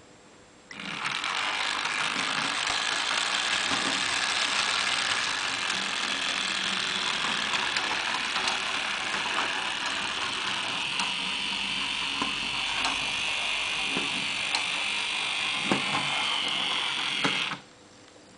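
Model streetcar running on its layout: small electric motor and gearing whirring with a steady high hiss and scattered clicks. Starts abruptly about a second in and cuts off suddenly near the end.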